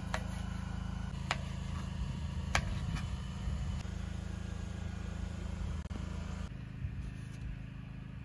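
Kitchen knife slicing boiled beef heart on a cutting board, giving a few sharp knocks of the blade against the board in the first three seconds, over a steady low hum.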